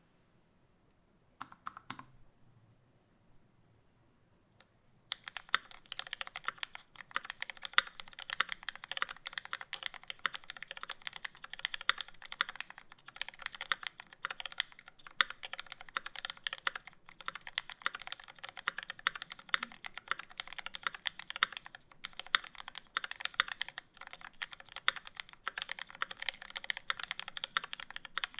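Typing on a custom KN2.10² mechanical keyboard with lubed Cherry Retooled Black linear switches, GMK keycaps and a 4mm aluminium plate. A few scattered keystrokes come first, then fast continuous typing from about five seconds in.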